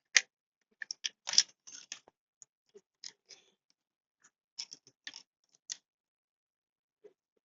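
Irregular sharp clicks and clacks of hand tools and chainsaw parts being handled, the loudest two within the first second and a half, then small groups of lighter ticks.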